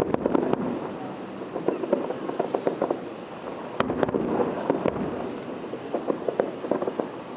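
Fireworks display going off: a dense run of rapid, irregular crackling pops and bangs, with a couple of louder bangs about halfway through.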